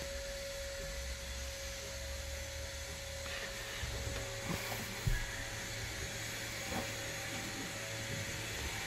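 A steady mechanical hum holding one constant tone over a hiss, with uneven low rumbles and a single thump about five seconds in.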